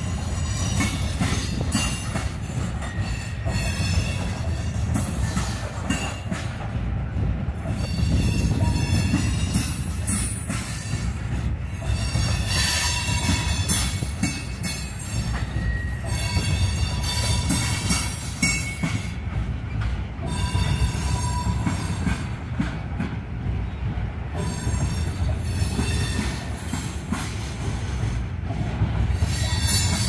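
Freight train of tank cars rolling past: a steady rumble of steel wheels on the rails, with brief high wheel squeals now and then.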